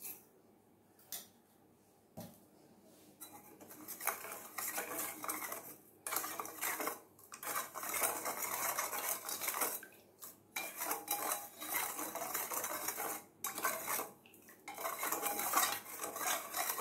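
Steel spoon stirring sugar into custard powder mixed with milk in a stainless steel bowl, scraping and clinking against the bowl's sides. A few light clinks come first as the sugar goes in, then steady stirring from about three seconds in, broken by several short pauses.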